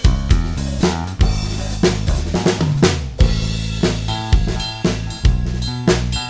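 Multitrack song playback of a full drum kit, with sample-replaced and augmented kick and snare, on a steady beat over sustained bass notes.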